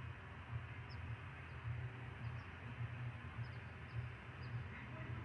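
Ocean surf washing steadily under a low, fluctuating rumble, with a small bird giving short high chirps about once or twice a second.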